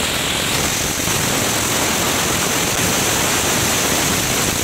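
Crackling fountain firework (cocktail fountain) burning: a steady, dense spray of hiss with fine crackling throughout.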